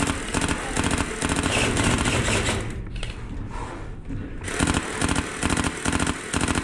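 Airsoft gun firing rapid repeated shots in a steady mechanical rhythm, with a pause of about a second and a half a few seconds in.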